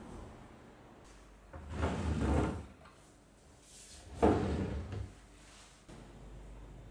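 A drawer sliding open and shut, twice, each slide about a second long, the second one starting with a sharp knock.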